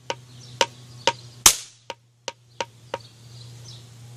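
A rock knocking repeatedly on a folded stack of paper toy caps on the ground, about two knocks a second. About a second and a half in, one much louder sharp bang rings out: the caps going off.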